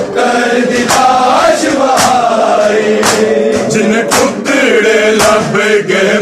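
A crowd of men chanting a Punjabi noha (mourning lament) together, with sharp slaps of open hands on bare chests (matam) about once a second, in time with the chant.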